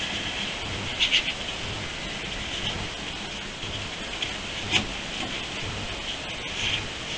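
Gloved hands shifting and rubbing a large, slippery, sedated koi on a wet towel, with short bursts of handling noise about a second in, near five seconds and near the end, over a steady hiss.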